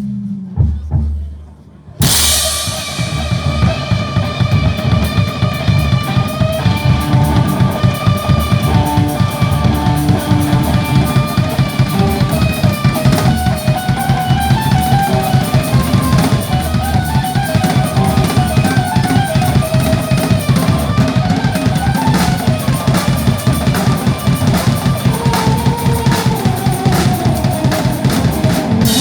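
A band playing: a drum kit keeps a steady beat with kick and snare under guitar. The music comes in abruptly about two seconds in, after a brief lull.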